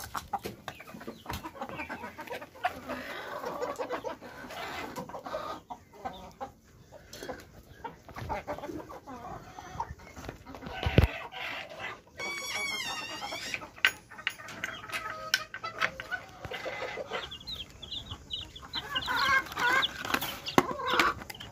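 A flock of chickens clucking as they peck eagerly at feed in bowls, with many quick beak taps on the bowls. Near the end, young chicks peeping in short repeated chirps.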